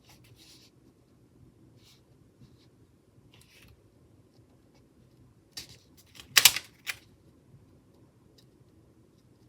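Paper stickers and sticker-book pages being handled: faint rustles, then a brief cluster of sharp crackles and taps about six seconds in, the loudest near the middle of that cluster.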